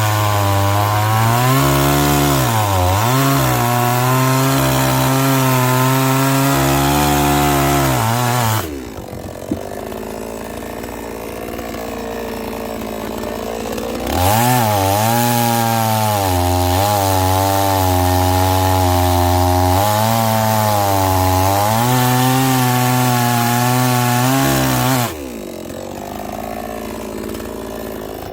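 Two-stroke chainsaw cutting firewood at full throttle, its engine note dipping again and again as the chain bites into the wood. It drops back to idle about nine seconds in, cuts again from about fourteen seconds, and returns to idle near the end.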